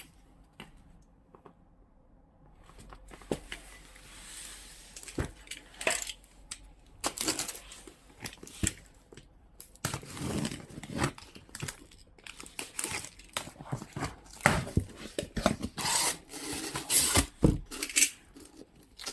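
Packaging being torn open and handled by hand: irregular tearing and crinkling with sharp clicks and knocks. It starts a couple of seconds in and grows busier in the second half.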